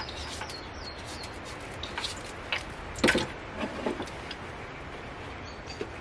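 A small metal pot is handled and set down on a wooden table, with light clicks and a knock about three seconds in, the loudest sound. Small birds chirp faintly in the background.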